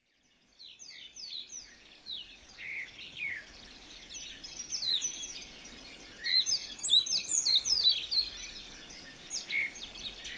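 Several birds chirping in a busy chorus of short, quick, mostly falling calls, fading in about half a second in and thickest a little past the middle.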